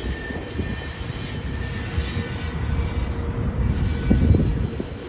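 Freight train cars rolling along the rail with a low rumble of wheels on track and a faint thin wheel squeal near the start; the rumble swells briefly about four seconds in.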